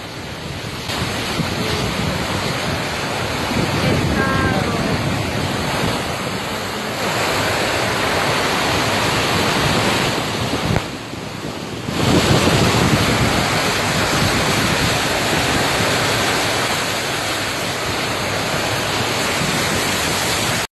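Fast floodwater rushing through a street, heard as a dense steady noise with wind buffeting the phone microphone. The clips change abruptly: the noise dips briefly around eleven seconds and comes back louder.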